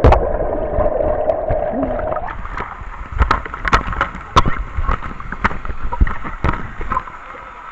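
Swimming-pool water heard from under the surface, a muffled rushing of bubbles and falling water for about the first two seconds, then above the surface a series of sharp knocks and splashes amid the spray of falling water jets.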